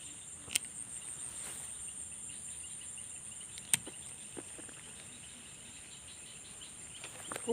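Steady high-pitched chirring of insects, with two sharp clicks, one about half a second in and one a little before the midpoint.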